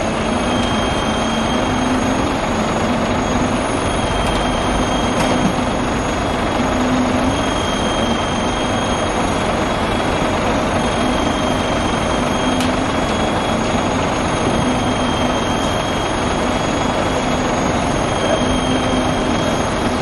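Steady, loud machinery noise from a concrete mixer truck and a trailer concrete pump running together during a concrete pour.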